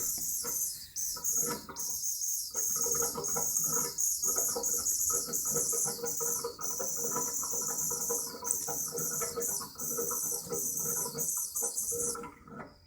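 Leaking radiator valve hissing steadily, with a fluttering, gurgling sound under the hiss, from the leak at its connector and air vent. It cuts off about twelve seconds in.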